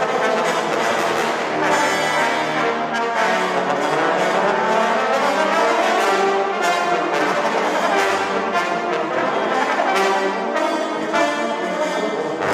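Trombone ensemble playing loud, sustained chords, with several sharply accented attacks along the way.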